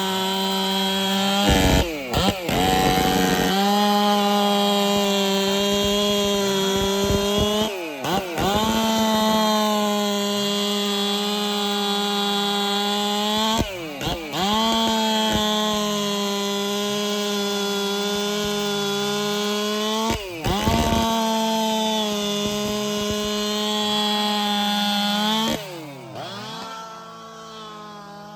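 Ported Jonsered 2165 chainsaw, a two-stroke, cutting wood at full throttle in long steady cuts. The revs dip and flare briefly about every six seconds between cuts. Near the end it drops back to a lower, unsteady speed.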